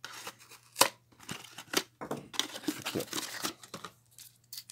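Kitchen knife slitting open a thin cardboard Kinder Joy box, with a sharp snap about a second in, followed by cardboard tearing and rustling as the box is pulled open and the plastic egg taken out.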